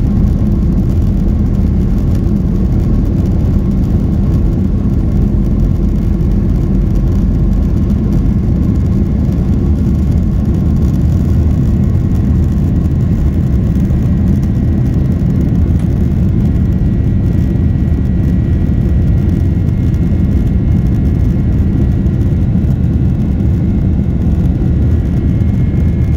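Boeing 767 jet engines at takeoff power heard from inside the cabin during the takeoff roll and climb-out: a loud, steady deep rumble with a faint whine above it.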